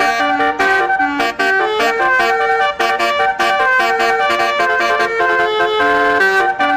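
Basuri telolet horn, a multi-tone air horn set, playing a fast tune: several notes sound together and step from pitch to pitch several times a second without a break.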